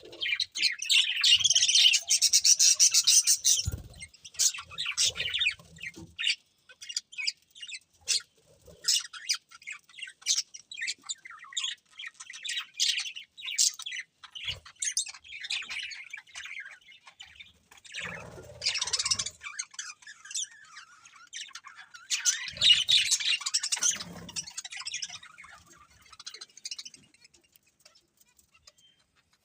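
Budgerigars chirping and chattering, a stream of quick high chirps with louder bursts of warbling and squawks now and then, tailing off near the end.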